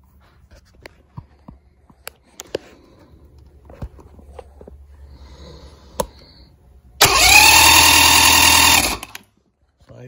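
Electric starter cranking a 1989 Mercury 45 hp four-cylinder two-stroke outboard for about two seconds, rising quickly in pitch as it spins up, then steady until it stops abruptly. The engine turns over without firing because the ignition has lost spark. A few small clicks and taps come before it.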